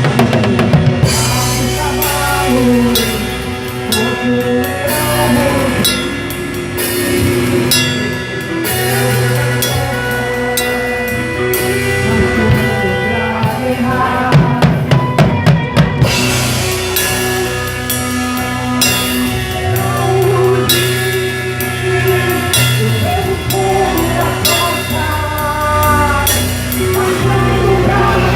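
Drum kit played along with a worship song, with a singing voice and backing instruments. About halfway through there is a quick run of drum hits, a fill.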